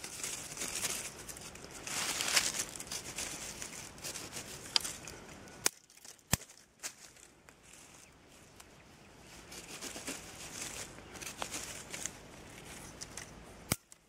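A knife shaving and whittling a thin branch: a run of scraping strokes on wood with a few sharp clicks, while a trap trigger stick is carved.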